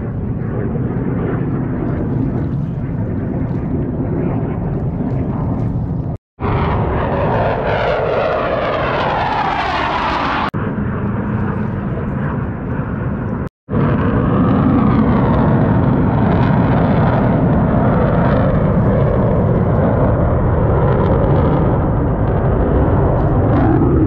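Blue Angels F/A-18 Super Hornet jets flying past: a steady jet-engine roar, with a sweeping whoosh that shifts in pitch as one passes close, about seven to ten seconds in. The sound drops out briefly a few times.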